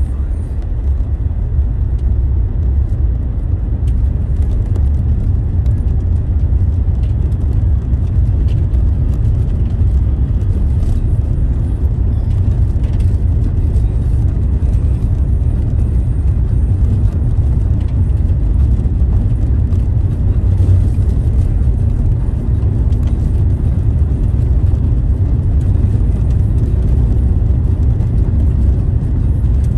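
Steady low rumble of a car driving at a constant speed, heard from inside the cabin: tyre and engine noise on the road.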